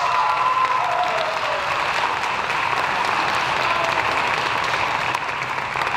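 Audience applauding, a steady dense clapping in response to a winner being announced.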